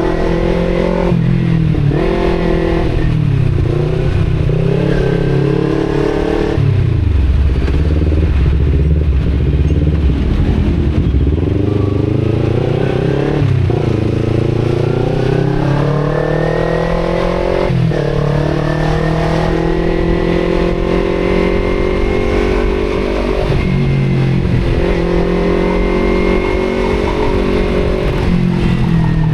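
Kawasaki Z250 parallel-twin engine through an aftermarket Akrapovic exhaust, accelerating on the move. Its pitch climbs and then drops sharply at each of several gear changes. It runs low for a few seconds, then makes a long slow climb and eases off near the end.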